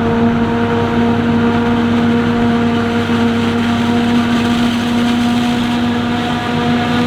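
Heavy farm machinery running steadily under load: a continuous engine and driveline drone with a steady whine on top.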